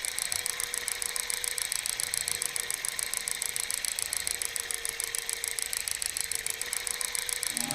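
Clockwork mechanism of an antique mechanical music box running with a rapid, even ratchet-like clicking; the first plucked notes begin just before the end.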